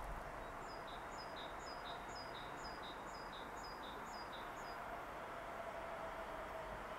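A songbird singing a quick phrase of short, high notes stepping down in pitch, repeated about twice a second for some four seconds. Faint steady background noise lies under it.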